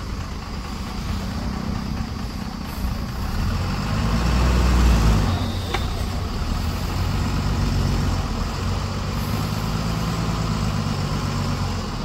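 49 hp JCB 3DX backhoe loader's diesel engine running as it works, pulling harder and louder for a second or so about four seconds in, then settling. A short sharp click a little after the middle.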